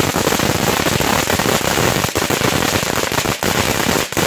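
A lit firework going off with a loud, dense, continuous rapid crackle.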